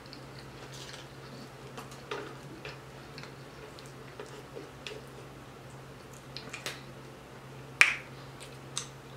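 Close-miked eating sounds: soft clicks and crackles of fingertips picking crumbled bacon off a hot dog, then a sharp wet mouth smack near the end as food goes into the mouth. A faint steady low hum runs underneath.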